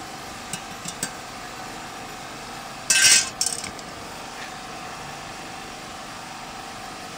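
Metal tools and parts being handled at a copier's paper-feed unit: a few light clicks, then a short loud metallic clatter about three seconds in with a smaller rattle just after, over a faint steady hum.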